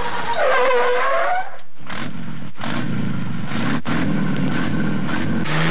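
Cartoon street-traffic sound effects: about a second and a half of gliding, horn-like tones, then a sudden break into a dense din of car engines rushing past.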